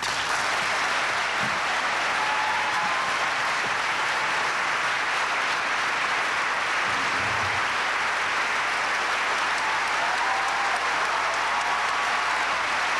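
Audience applauding, a steady unbroken clapping that holds at one level throughout.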